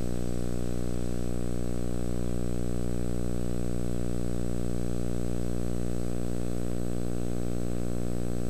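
Steady low electrical hum and buzz with many even overtones, unchanging throughout, with a faint thin high tone above it.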